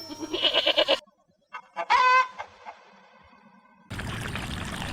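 Goat bleating: a quavering, wavering bleat in the first second, then a second, shorter animal call about two seconds in. A steady hiss of outdoor noise starts near the end.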